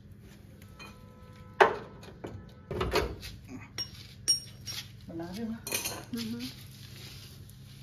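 Metal hardware and tools clinking and clanking as they are handled during fitting of tie-member bushes, washers and a bolt. A sharp metallic clack about one and a half seconds in is the loudest, followed by a run of clinks and knocks, some briefly ringing.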